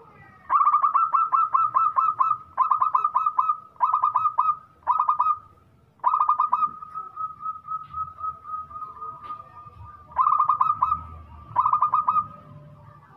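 Zebra dove singing in bursts of rapid staccato coos, seven bursts in all, with a softer rolling trill running between about seven and ten seconds in.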